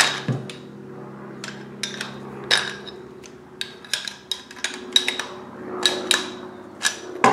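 Pliers and a wrench clicking and knocking against steel pipe fittings and a brass flare fitting as a gas burner assembly is tightened. The sounds come as an irregular string of sharp metallic clicks, with a steady low hum underneath.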